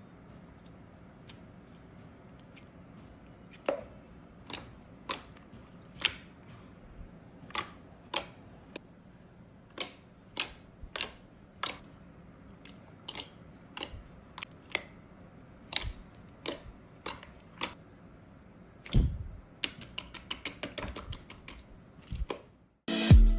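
Glossy slime being squished and worked, giving irregular sharp clicks and pops, one to three a second. Music starts right at the end.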